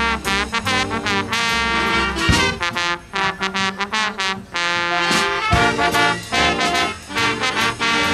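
Live jazz band playing a swing number: saxophones and horns over drum kit, bass and guitar.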